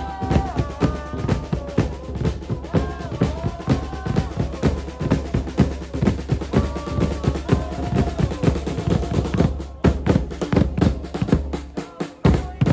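Music with a fast, dense drum beat over a steady bass and a sung or played melody line.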